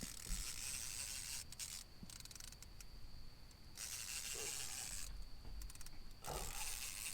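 Fishing reel ratcheting in three buzzing bursts of about a second each while a hooked catfish is played on a heavy rod.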